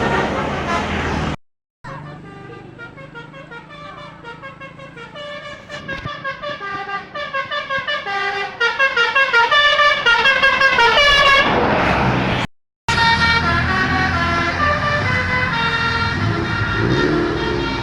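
A bus's 'telolet' multi-tone musical horn playing a fast repeating tune of stepping notes, growing much louder over several seconds. The sound twice cuts off abruptly to silence and resumes, with steadier horn tones and engine rumble near the end.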